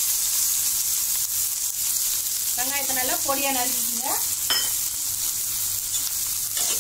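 Chopped onions frying in hot oil in a pan, a steady sizzle.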